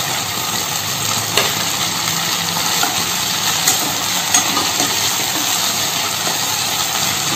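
Vegetables and sauces for a Manchurian gravy sizzling in an oiled pan while being stirred, with a few sharp clicks of the spoon against the pan.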